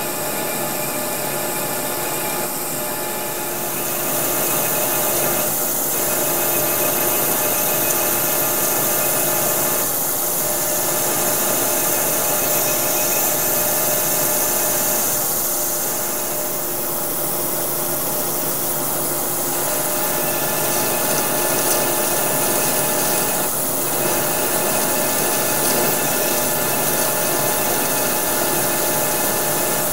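Manual lathe running while a hand-ground high-speed steel trepanning tool cuts a ring-shaped groove into the face of a spinning bar, with coolant on the cut. It gives a steady machine hum with several held tones over a hiss, and gets a little louder about four seconds in.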